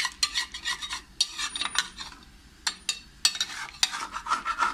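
A long metal spoon stirring mutton in a yogurt gravy in a metal pot, scraping and knocking against the pot's sides and bottom in quick, irregular clinks. The freshly added yogurt is being mixed in straight away so it does not curdle.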